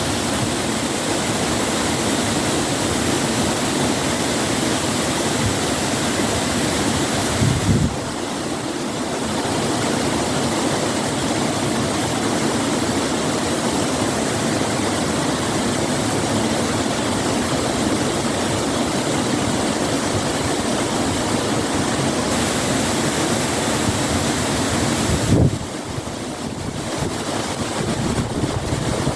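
Waterfall pouring: a steady, loud rush of falling water. The rush changes abruptly twice, about 8 seconds in and again about 25 seconds in.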